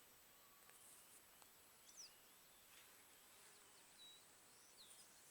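Near silence in open countryside, with a few faint, short, high bird chirps.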